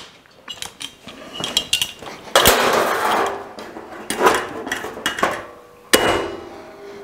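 Locking C-clamp being fitted and adjusted on a steel fender and its new sheet-steel patch panel: metal clinks and scraping, a rough clatter of sheet steel about two and a half seconds in, and a sharp metallic clack about six seconds in that leaves the panel ringing.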